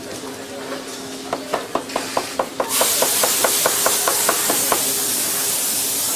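A steady hum with a run of about sixteen quick clicks, about four or five a second. A loud, even hissing spray starts partway through and runs alongside the later clicks.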